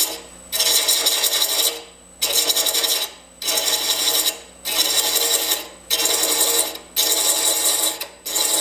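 Hand thread chaser cutting a thread into a male wooden tenon spinning on a lathe at about 330 rpm: a rough rasping scrape in about seven passes, roughly one a second, with short breaks between them. A faint steady lathe hum runs underneath.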